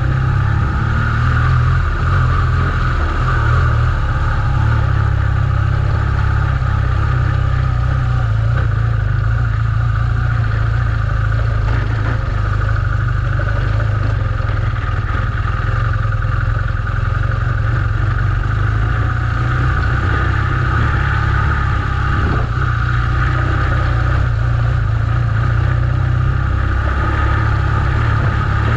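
BMW R1200GS Adventure's flat-twin boxer engine running steadily under load, pulling the bike uphill on a rough gravel track.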